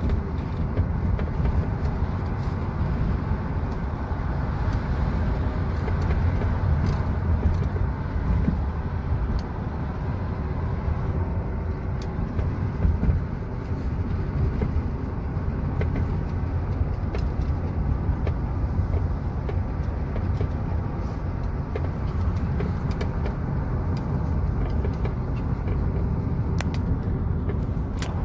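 Steady low rumble of road and engine noise heard inside the cabin of a moving Ford SUV while cruising, with a few faint clicks.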